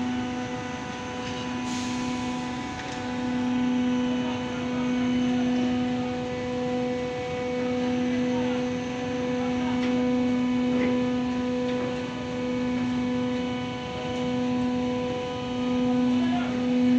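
Hydraulic power pack of a truck tippler running, a steady pitched hum with many overtones that dips briefly every few seconds. A short sharp click about two seconds in.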